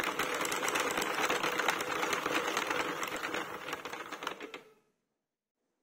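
Hand-cranked circular knitting machine being turned through a round: a fast, steady rattle of plastic needles clicking through the cam track as they knit two-colour Fair Isle stitches. The rattle cuts off abruptly near the end.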